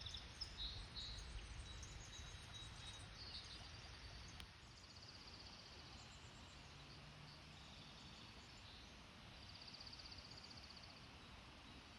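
Quiet winter forest ambience with distant songbirds giving short, high, pulsed trills, each about a second long, a few times. A faint low rumble dies away about four seconds in.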